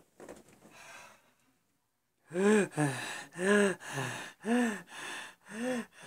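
A young man breathing heavily in loud voiced gasps, starting about two seconds in. The in- and out-breaths alternate louder and softer, about two a second.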